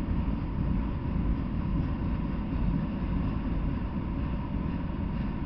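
Freight train of autorack cars rolling past, a steady low rumble of steel wheels on the rails.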